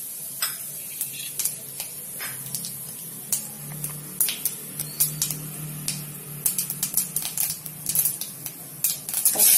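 Cumin seeds sizzling in hot oil in a kadai: a steady hiss with scattered crackling pops that come quicker in the last few seconds.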